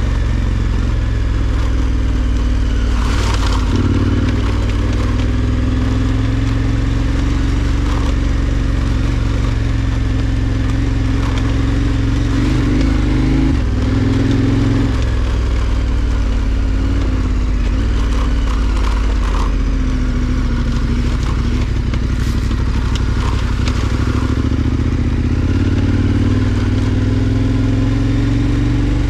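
KTM 1290 Super Adventure R's V-twin engine running at low, fairly steady revs, its pitch rising and falling gently as the bike is ridden over rough dirt. Brief knocks and clatter come through now and then as the bike goes over bumps.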